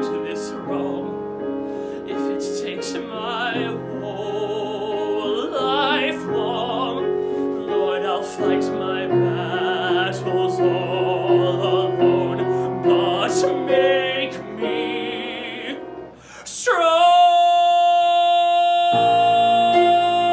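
A man singing a musical-theatre ballad with vibrato over an accompaniment. About 17 seconds in, the voice swoops up into a long, loud held high note.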